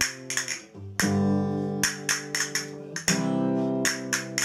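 Guitar strumming the instrumental intro of a song. Chords are struck with sharp strokes and left ringing, with a fresh chord about every two seconds.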